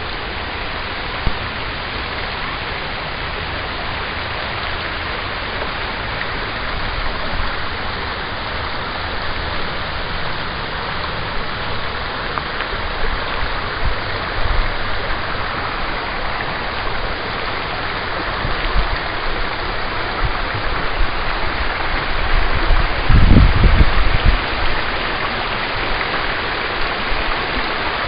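Rushing water of a rocky woodland brook, a steady hiss that slowly grows louder as the stream comes closer. A brief low rumble on the microphone about 23 seconds in.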